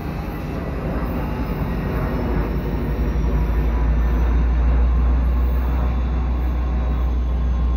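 Diesel train rumbling, a heavy low rumble that grows louder over the first few seconds and then holds steady, with a faint steady whine above it.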